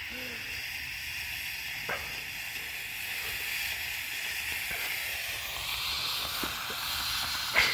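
Black smoke bomb burning with a steady hiss that grows louder after about five seconds. A sharp click near the end.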